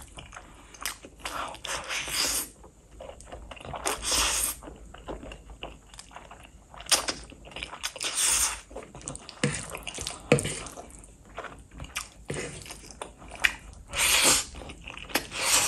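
Close-miked eating sounds of a person eating Korean fire noodles: wet chewing with mouth clicks and smacks, broken by several longer noisy slurps of the noodles.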